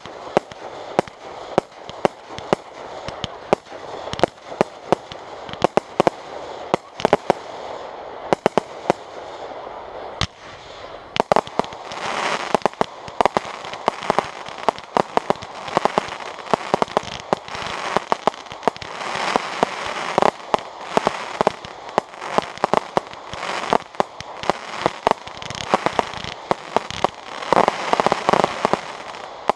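Aerial fireworks bursting in a rapid, irregular string of sharp bangs. About twelve seconds in, it thickens into a dense, continuous barrage.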